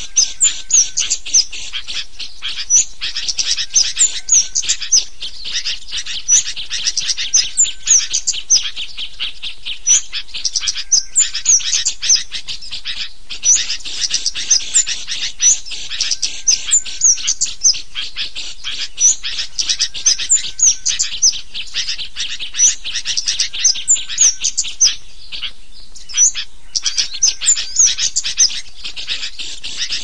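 Small songbirds chirping and twittering without pause: a dense run of sharp high ticks and chirps, with short rising whistles recurring about once a second. It is a small-bird lure (pikat burcil) track, made to call small birds in.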